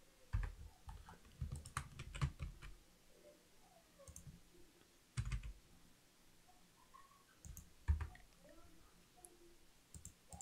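Faint, scattered clicks and keystrokes from a computer mouse and keyboard, with a few louder knocks, the loudest about eight seconds in.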